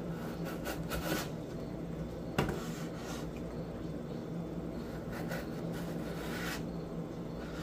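Chef's knife slicing through a raw potato and knocking on a wooden cutting board: several scraping cuts with short knocks spread through, the sharpest about two and a half seconds in. A steady low hum runs underneath.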